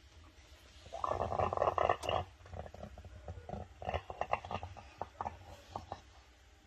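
Krups Evidence bean-to-cup coffee machine's spout gurgling and sputtering as air and liquid spit out at the end of dispensing: a short dense gurgle, then irregular crackling spits that die away.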